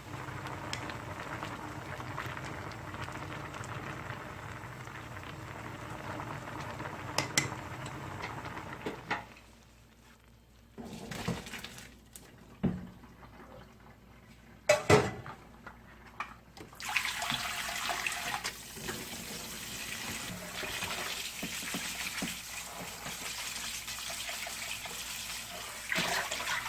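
Eating sounds: ramyun noodles slurped and chewed, with a few sharp clicks of utensils on a bowl during a quieter stretch in the middle.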